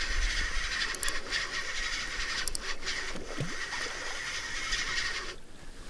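Daiwa Exist 2506 spinning reel whirring steadily as the line is retrieved, with a few sharp clicks; the reeling stops suddenly near the end.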